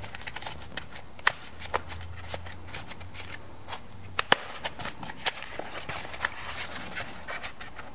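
Foam insert and plastic tweeter pod handled and fitted together by hand: soft rustling and scratching with scattered small clicks, and one sharper click about four seconds in.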